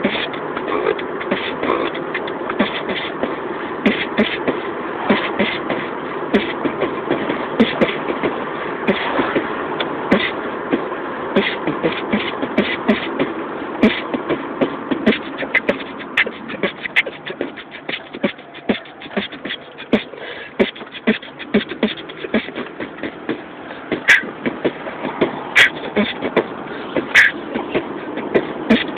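A man beatboxing inside a car: a steady run of mouth-made kick, snare and hi-hat clicks mixed with vocal sounds, softer through the middle and with a few sharp, loud clicks near the end.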